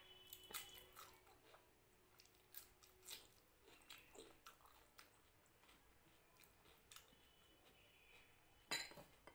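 Close-miked chewing of a crisp cucumber slice: scattered soft crunches and wet mouth clicks. Near the end a brief, louder scrape as fingers mix rice on the plate.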